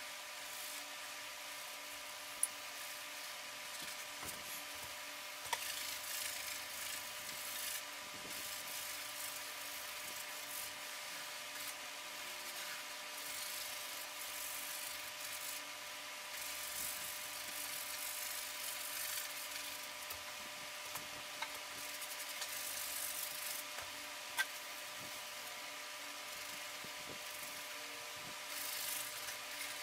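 Faint scratchy rubbing of a paintbrush on canvas, coming and going in patches, with a few small clicks, over a steady faint electrical whine.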